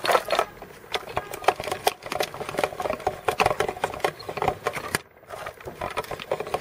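NGT Multi Bait Grinder, hand-cranked, crushing boilies: a fast crackle of crunching and clicking as the handle turns. It breaks off briefly about five seconds in, then starts again.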